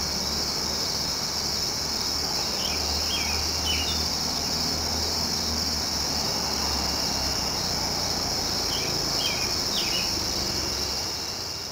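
Steady, high-pitched chorus of night insects such as crickets, trilling without a break. A bird gives a quick series of three short falling chirps twice, a few seconds in and again near the end. A faint low hum sits underneath.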